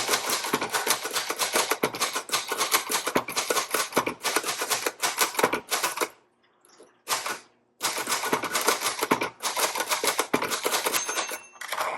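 1961 Royal Signet manual portable typewriter being typed on at a quick pace, with rapid type-bar strikes and key clicks. The typing stops for about a second and a half partway through, then resumes.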